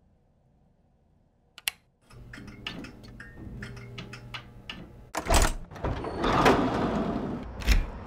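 A light switch clicks once, then fluorescent ceiling lights hum steadily with irregular small ticks. From about five seconds in, louder thumps and rattling take over.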